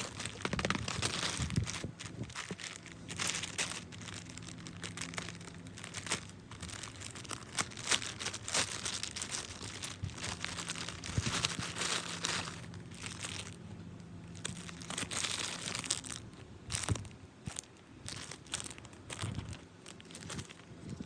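Plastic packaging of a phone case crinkling and tearing as it is unwrapped and handled, in irregular rustles with small clicks and a few louder bursts.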